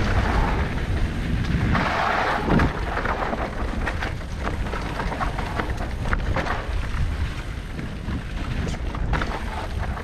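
Wind buffeting the microphone over the rumble of knobby tyres on a dirt trail, with frequent clicks and rattles from a KTM Macina Kapoho electric mountain bike bouncing over rough ground, and a brief louder rush of noise about two seconds in.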